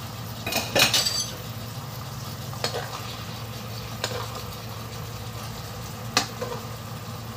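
Black bean sauce simmering in a nonstick wok while a metal spoon scrapes and knocks against the pan, spooning the sauce over a fried pomfret. The loudest clatter comes about a second in, followed by three single knocks a second or two apart, over a steady low hum.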